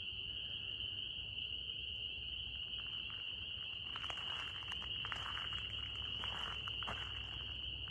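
Night chorus of insects: a steady, high-pitched drone, with frogs calling faintly through the middle.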